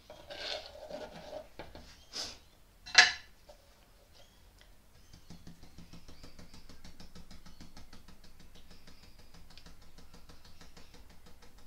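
A stick scrapes and stirs thick wet cement mix in a silicone mixing bowl, with two sharp knocks about two and three seconds in, the second one loud. Then comes a faint, steady crackling as the marbled cement slides slowly out of the tipped bowl into the silicone mould.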